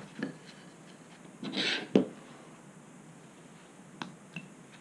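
Hand carving tools at work on a wooden carving: scattered light clicks and taps as the gouge and knife are handled, and a short scraping swish of a blade cutting wood about a second and a half in, followed at once by a sharp knock.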